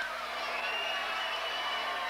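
Basketball crowd in a gymnasium: many voices yelling and chattering, with one long high-pitched yell held from about a quarter of the way in.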